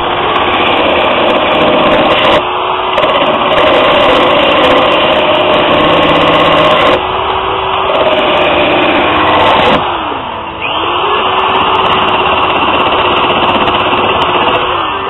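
Power tool with a grinding disc running at high speed and grinding into a plastic Camaro grille, a steady whine over a gritty grinding noise. About ten seconds in, the pitch drops as the tool is let off, then it spins back up.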